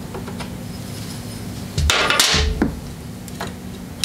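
Metal parts of a snowblower's belt drive clanking as a pulley is worked off by hand, with a few light clicks and then one loud metallic clatter about two seconds in.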